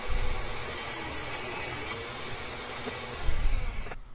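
Table saw running and ripping wood boards to width: a steady, noisy rush that cuts off suddenly near the end.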